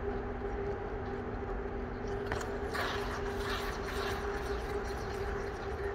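Steady machinery hum of an indoor ice rink, holding a few constant tones over a low rumble. From about three seconds in, a figure skate's blade scrapes and hisses across the ice for about a second and a half during a sit spin.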